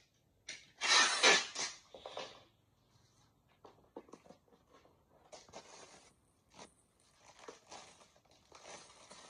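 Packaging being handled: a loud scraping rustle from about half a second to two seconds in, then lighter, broken crinkling of the plastic shrink-wrap around a plastic drawer tray as it is picked up.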